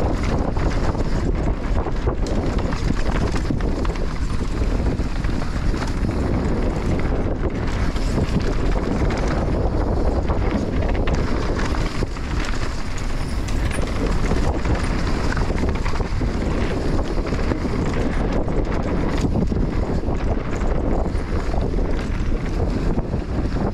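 Enduro dirt bike being ridden along a trail, its engine running steadily under a heavy rumble of wind noise on the microphone.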